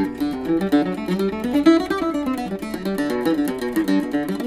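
A-style mandolin being picked: a quick single-note melody that winds up and down.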